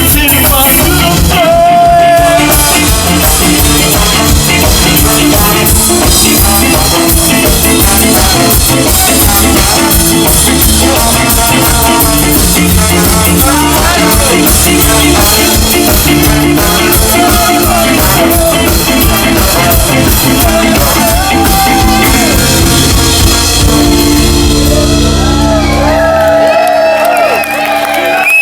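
Ska band playing live at full volume, brass over a driving bass and drum beat. About two seconds before the end the beat stops on a held final chord, and the song ends abruptly.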